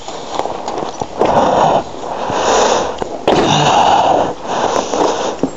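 A person breathing hard close to the microphone, a series of rough in-and-out breaths each lasting about a second.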